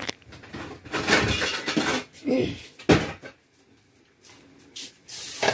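Kitchen clatter of pots and utensils being handled, with a sharp clank just before three seconds in.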